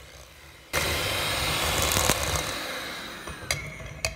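Electric hand mixer beating butter and sugar in a glass bowl. It starts suddenly under a second in and fades away over the next two and a half seconds, followed by a couple of sharp clicks near the end.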